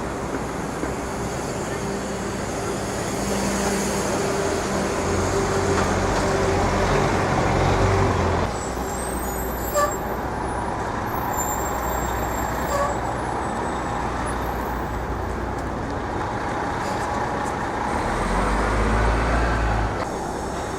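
City street traffic, with a heavy vehicle's engine running louder for several seconds and cutting off about eight seconds in. A few brief high squeals follow, and another low engine rumble passes near the end.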